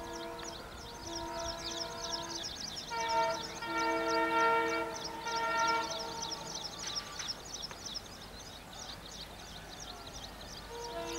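Diesel locomotive horn sounding a series of chord blasts of uneven length as the train approaches, over steady high-pitched chirping.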